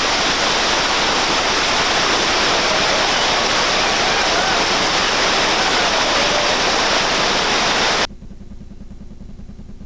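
Whitewater rapid on the Reventazón River rushing loudly and steadily. About eight seconds in the sound drops off abruptly, leaving only a low hum.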